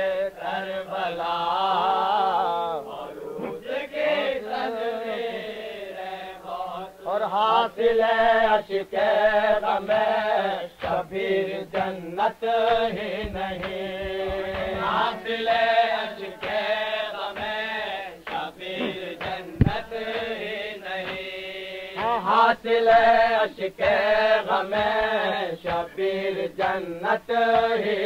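Male nauhakhwan voices chanting an Urdu salam, a Shia devotional recitation, in long melodic phrases. The sound is muffled and narrow, like an old tape recording.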